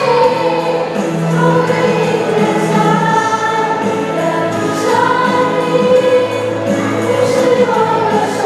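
A choir singing a slow song in long held notes, several voices together, with no break.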